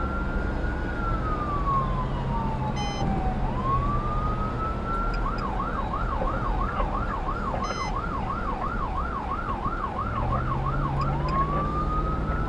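Fire department response vehicle's siren while driving. It gives a slow wail that rises and falls, then switches to a fast yelp of about two and a half warbles a second for several seconds, then goes back to the wail near the end. Steady engine and road noise runs underneath.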